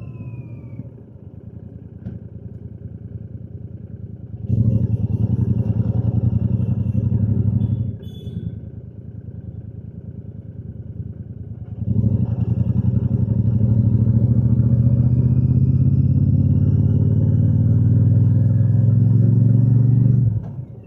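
Royal Enfield Shotgun 650's 648 cc parallel-twin engine and exhaust under way. It runs softly off throttle for the first few seconds, then pulls under throttle from about four and a half seconds in and eases off around eight seconds. It pulls again from about twelve seconds with the revs climbing slowly, then drops off briefly near the end.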